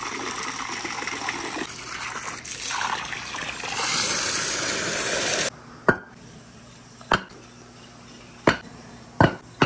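Water from a hose pouring and splashing, which cuts off abruptly about five and a half seconds in. After it come about five sharp knocks, each one short and separate, as hollow concrete blocks are set down on one another.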